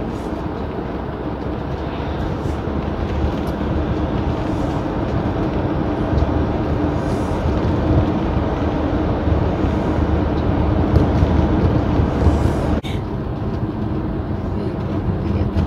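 Motorhome driving on the road, heard from inside the cab: steady engine and tyre noise with a low hum.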